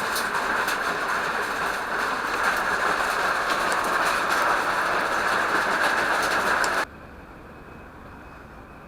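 Rain-swollen waterfall: a steady rush of falling water, with scattered drips ticking through it. About seven seconds in it cuts off suddenly to a much fainter hiss.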